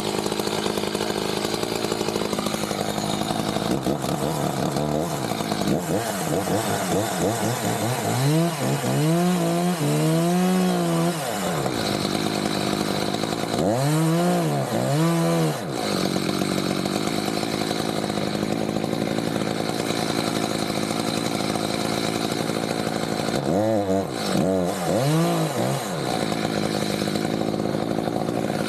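Chainsaw engine running continuously, revved up and back down three times: about a third of the way in, again around the middle, and again near the end.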